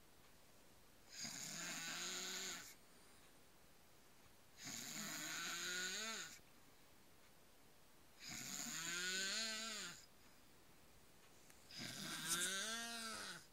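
A man snoring loudly and rhythmically: four rasping snores, one about every three and a half seconds, each rising in pitch as it ends, with quiet pauses between breaths.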